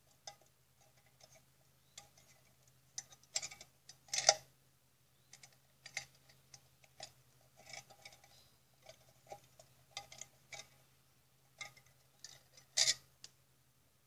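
Pliers gripping and twisting thick wire against a steel tin can: irregular small metallic clicks and ticks, with louder clacks about four seconds in and near the end, over a faint steady hum.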